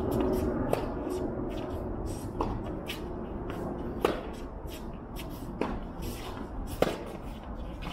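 Tennis ball struck back and forth in a rally: five sharp racket hits about one and a half seconds apart, alternately louder and softer as the near and far player strike. Many faint scuffs in between.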